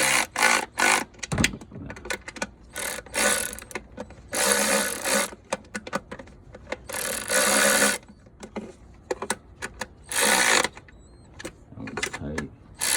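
Ratchet wrench clicking in several bursts of half a second to a second each, as nuts are run down snug onto the intake manifold studs.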